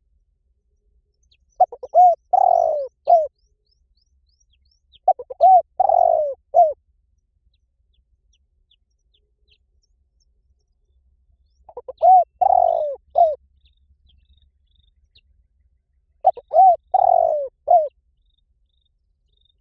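Spotted dove cooing: four phrases of several coos each, spaced a few seconds apart.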